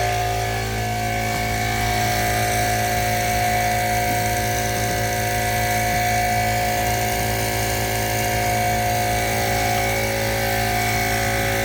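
McGraw 10-gallon electric air compressor running steadily under load, its motor and pump holding an even hum while it fills a completely flat car tire.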